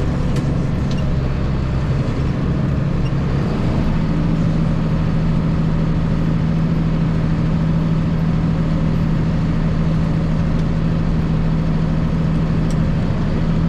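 Tractor engine running steadily under load, driving a bush hog rotary mower through the PTO, heard from inside the cab. Its pitch steps up slightly about four seconds in.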